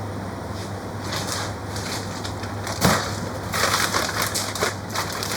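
Irregular rustling and scraping handling noises with one sharp knock about three seconds in, over a steady low hum.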